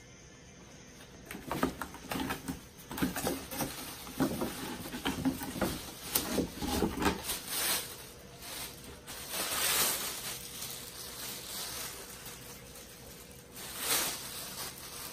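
Plastic bag crinkling and cardboard rustling as a long speaker grille is handled, lifted out of its box and unwrapped. There are irregular crackles in the first half, then longer swishes of the plastic being pulled off.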